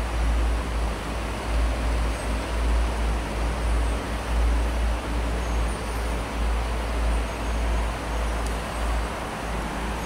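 Wind buffeting the microphone: a low rumble that swells and eases about once a second, with a faint steady hiss above it.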